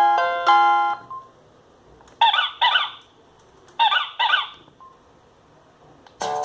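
Alcatel OT-757 mobile phone ringtones. A synthesized ringtone melody ends about a second in. Then a sound-effect ringtone of short animal-like calls plays in two pairs, about a second and a half apart. Another synthesized melody starts just before the end.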